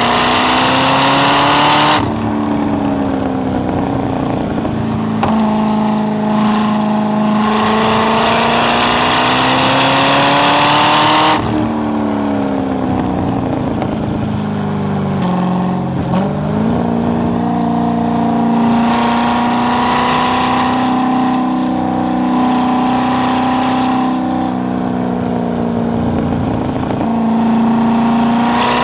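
Chevrolet Corvette C6 Z06's 7.0-litre LS7 V8 under hard acceleration, its pitch climbing through the revs with sudden drops at gear changes or lift-offs. About twelve seconds in it comes off the throttle and the revs fall, with a quick rev-matching blip on a downshift. It then holds a fairly steady pitch before climbing again near the end.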